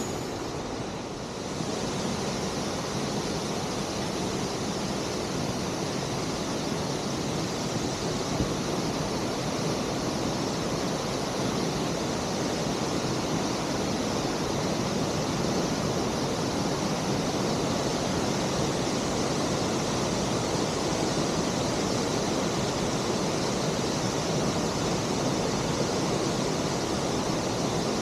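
Waterfall rushing: a steady, unbroken roar of falling water that grows a little louder about a second and a half in.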